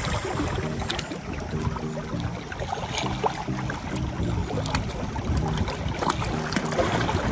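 Wind rumbling on the microphone, with sea waves washing against the rocks.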